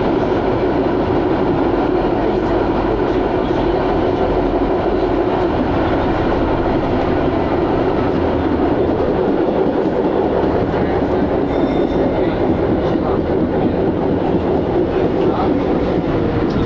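Konstal 102Na articulated tram running along the track, heard from inside the car: a steady, loud running noise of wheels on the rails and the moving car.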